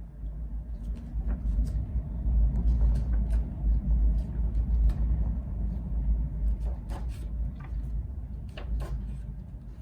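Picture-book pages being flipped through, heard as scattered soft clicks and rustles over a heavy low rumble that builds over the first couple of seconds and eases in the last few.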